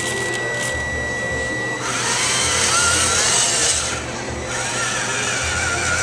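Electric drive motors and gearboxes of a radio-controlled Bruder Caterpillar toy bulldozer running with a whine. It gets louder about two seconds in, eases off briefly near four seconds, then picks up again.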